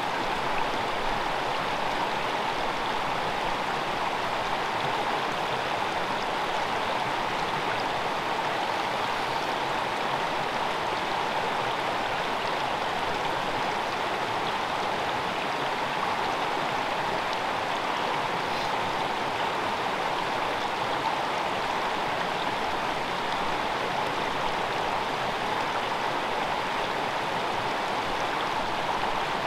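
A small freestone mountain stream running, a steady, unbroken rush of water.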